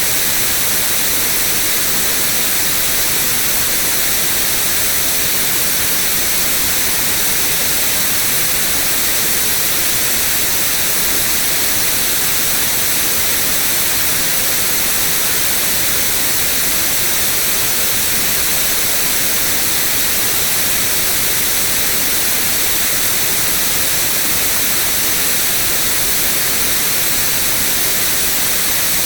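Steady white noise: an even, unchanging hiss, heaviest in the high frequencies.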